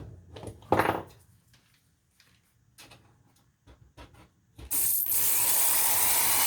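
Small clicks and knocks of parts and tools being handled, then about four and a half seconds in a power drill starts and runs steadily, drilling a screw hole in a harmonica mouthpiece slider a little deeper to the right size.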